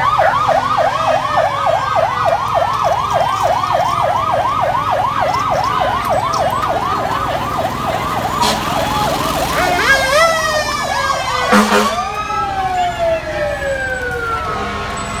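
Fire truck siren in fast yelp, sweeping up and down about four times a second for roughly ten seconds, then changing to slower rising and falling wails. A short loud blast comes about two-thirds of the way through.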